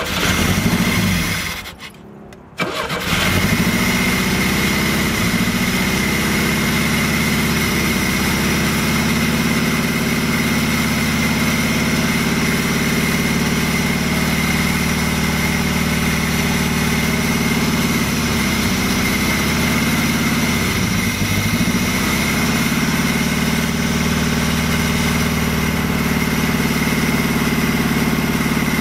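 A 1985 Pontiac Fiero's 2.5-litre Iron Duke four-cylinder runs on fuel poured by hand into its throttle body, because the fuel injection isn't delivering. It catches, nearly dies about two seconds in, picks up again and then runs steadily, with a steady high whine over it.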